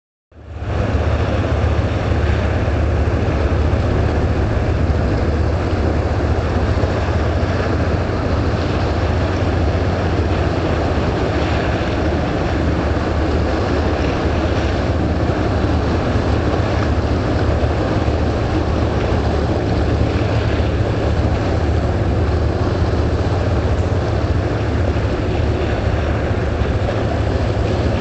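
A boat engine droning steadily, mixed with wind and water noise.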